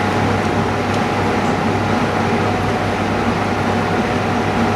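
Steady mechanical hum with a loud hiss and a few held tones, unchanging throughout.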